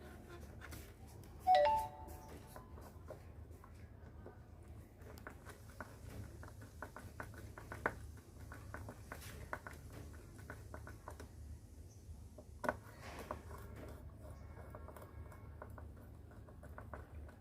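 A short electronic chime rings once about a second and a half in, over a steady low hum and faint scattered clicks and knocks.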